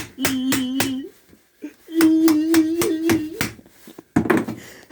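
A person humming two held notes, the second higher than the first with a pause between, while rapid taps beat over them at about five a second. A single sharp knock comes near the end.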